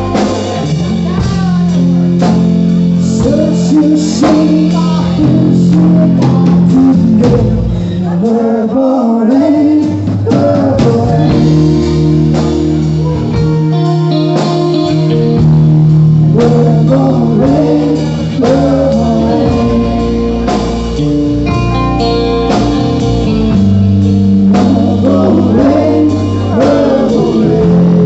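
Live band music: a man singing at a microphone over an electric guitar, with drums and long held low notes underneath.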